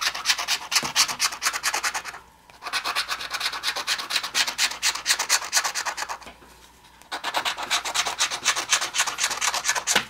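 Rapid scratching strokes rubbing the coating off a Pennsylvania $5 Million Money Maker scratch-off lottery ticket, in three runs with brief pauses about two seconds and six seconds in.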